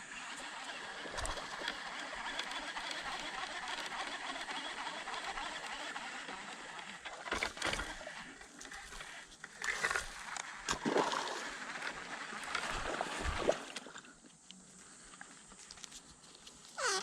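Water sloshing and splashing: a steady rushing hiss for the first several seconds, then a run of irregular splashes.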